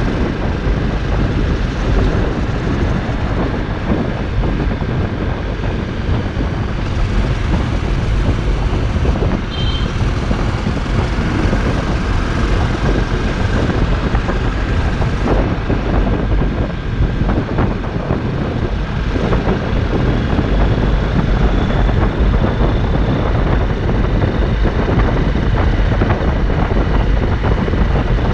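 Heavy wind noise buffeting the microphone over a Honda CRF250L's single-cylinder four-stroke engine running at a steady cruising speed of about 45 to 55 km/h.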